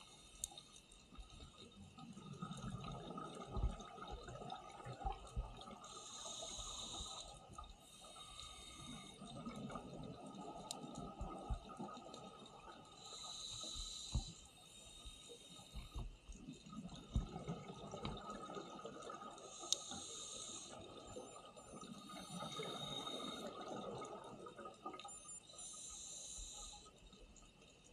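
Underwater scuba breathing through a regulator, played at double speed: a short high hiss for each inhale alternates with a longer low rumble of exhaled bubbles, about four breath cycles, with scattered sharp clicks.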